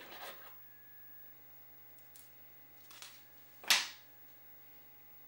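Small handling sounds of fly-tying tools and materials on a wooden tabletop: a brief rustle at the start, a couple of faint ticks, and one sharp click about three and a half seconds in, over a faint steady hum.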